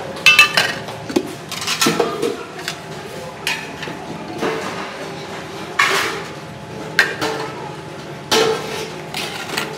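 Stainless steel thalis, a steel ladle and a steel pot clinking and clanking as curry is served into a compartment plate. The knocks come at irregular intervals, each ringing briefly, the loudest near the start.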